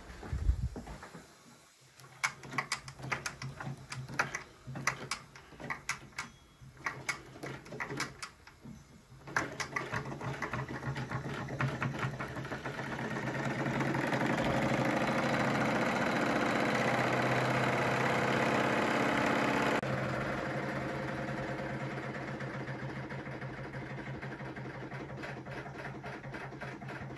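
Wilesco D21 toy steam engine starting up: irregular clicks and chuffs for several seconds, then it settles into a steady fast run with a hum and a hiss of steam. The sound is loudest in the middle and quieter from about twenty seconds in.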